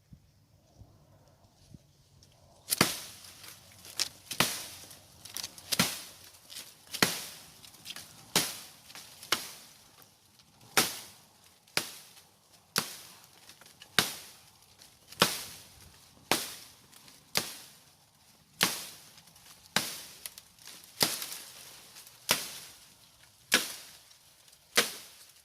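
About twenty sharp chopping strikes, evenly paced a little over one a second, starting about three seconds in; each is a crisp hit with a short ring-off, like a blade cutting into wood.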